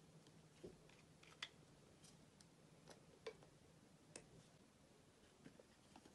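Near silence broken by a handful of faint, scattered clicks and taps as hands handle plastic makeup packaging, a lip gloss tube and then an eyeshadow palette, over a glass dish.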